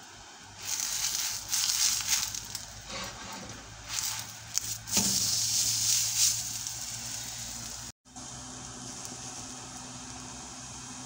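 Paratha frying in oil on a flat iron tawa, sizzling and crackling loudly as it is pressed and turned. About eight seconds in, after a cut, this gives way to a quieter steady low hum.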